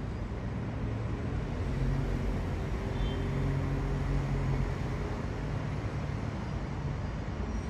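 Steady distant engine rumble, with a low hum swelling from about two to five seconds in.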